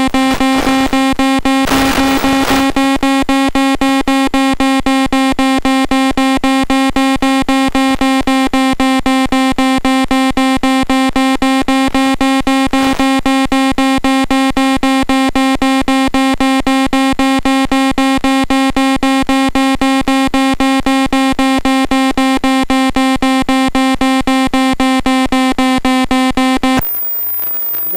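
Electronic beeping from the FPV plane's telemetry audio: one steady, buzzy electronic tone pulsing rapidly and evenly, which stops abruptly about a second before the end.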